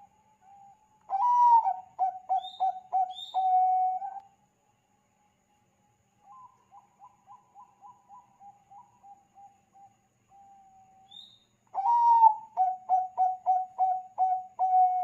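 Bangkok-strain zebra doves (perkutut) cooing. Two loud phrases, about a second in and near the end, each open on a rising and falling note and go on into a quick run of short staccato coos. A fainter run of coos comes in between, with a few faint high chirps from another bird.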